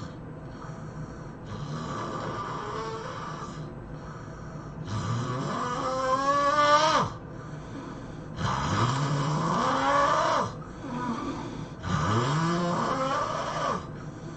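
A person snoring, one snore about every three seconds. The louder snores rise steeply in pitch as they go, and the loudest comes about six seconds in.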